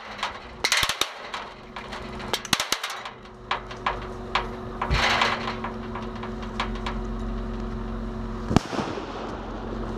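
Airsoft gunfire: rapid bursts of sharp clacks about a second in and again near three seconds, with scattered single shots, a short hiss around five seconds and one sharp bang a little past eight and a half seconds. Under it, a vehicle engine runs steadily.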